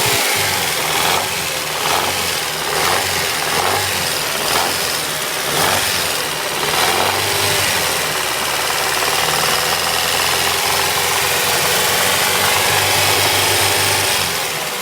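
Honda B18C 1.8-litre four-cylinder DOHC VTEC engine running with a knock from the VTEC lost-motion assemblies (rocker-arm dampers). Uneven, with repeated short knocks through the first several seconds, then steadier.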